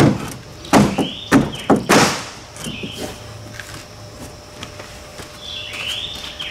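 A 0.100-inch aluminum floor sheet thumping against the aluminum jon boat hull as it is pressed down and fitted into place: five sharp knocks in the first two seconds, then quieter handling.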